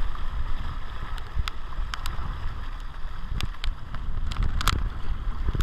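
Wind rumbling on the microphone out on open water aboard a Sea-Doo personal watercraft, with a scattering of short, sharp ticks.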